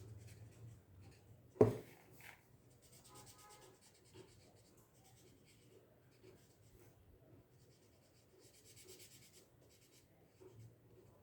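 Faint scratching of a felt-tip marker stroked back and forth across paper, with one sharp knock about two seconds in.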